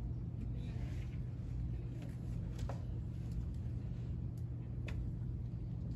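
Faint strokes and a few short ticks of a dry-erase marker writing on a whiteboard, over a steady low room hum.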